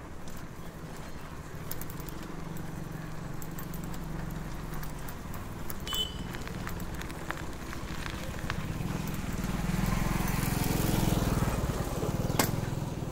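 Street noise in a city lane heard from a moving bicycle: a steady low motor hum that swells about ten seconds in as a vehicle comes close, with scattered small clicks and rattles and one sharp click near the end.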